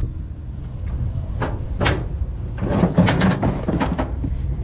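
Cardboard boxes and a plastic storage tote being loaded into a pickup's bed: a string of knocks, bumps and rattles, busiest about three seconds in.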